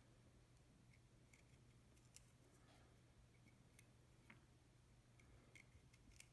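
Near silence, broken by faint, scattered small clicks of a paring knife cutting into a raw carrot slice as the petals of a nejiri ume (twisted plum blossom) flower are carved in the hand.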